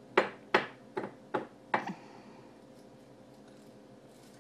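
Small cast-iron skillet knocked down on a wooden cutting board: five sharp knocks in about two seconds.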